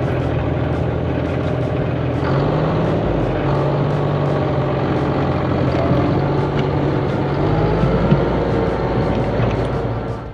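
Heavy vehicle engine running steadily, its pitch shifting up or down in steps a few times.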